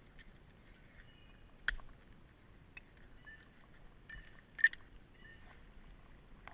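A few sharp knocks and clicks of hand tools being handled, as a mallet and a small stump vise are worked loose from a tree stump. One knock comes a little under two seconds in and a louder one about two-thirds of the way through.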